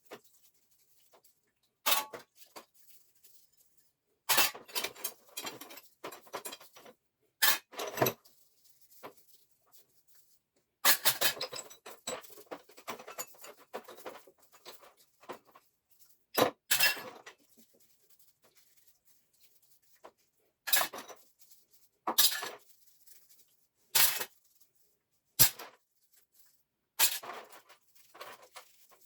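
Metal parts and hand tools clinking, knocking and rattling against each other as they are handled, in about a dozen short bursts with dead-silent gaps between them.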